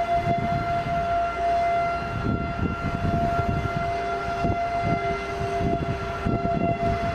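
Steady alert siren holding one pitch, over irregular low rumbling and knocks.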